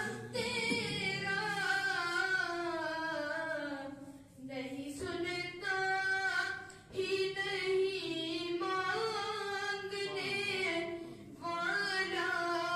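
A boy singing a naat (Urdu devotional song) unaccompanied into a handheld microphone, in long held, wavering phrases, pausing briefly for breath three times.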